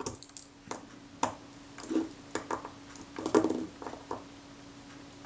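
Small screwdriver tightening four tiny screws in the focus mount of a Kodak Retina IIIC camera: scattered light clicks and small metallic taps, a few ringing briefly.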